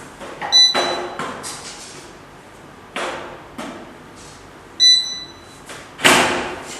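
Two short electronic beeps from an electric fireplace's control panel or remote as its settings are changed, between several dull knocks that die away quickly, the loudest near the end.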